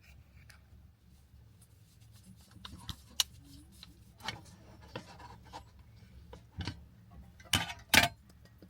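Small objects being handled: scattered clicks and taps, with a sharp click about three seconds in and two louder knocks close together near the end, over a faint low hum.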